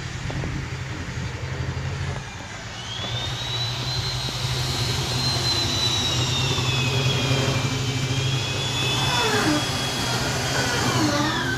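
Steady low engine hum with a long, high whine above it that starts about three seconds in and slowly wavers in pitch. Several shorter gliding tones join it near the end.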